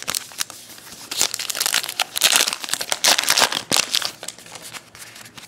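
Foil wrapper of a 2012 Topps Gypsy Queen baseball card pack being crinkled and torn open by hand, a dense run of sharp crackles, loudest in the middle.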